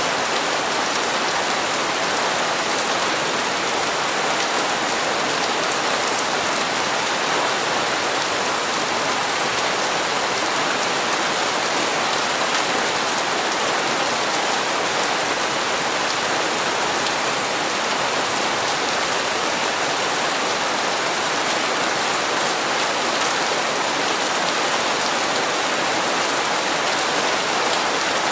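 Steady rain falling and pattering on hard surfaces, an even unbroken hiss with fine drop ticks.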